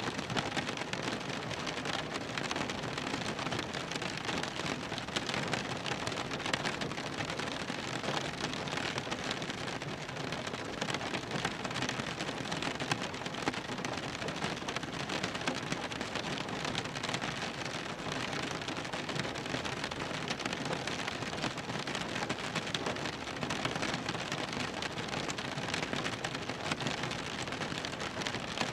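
Rain drumming steadily on a car's roof and windows, heard from inside the cabin: a dense, even patter of drops.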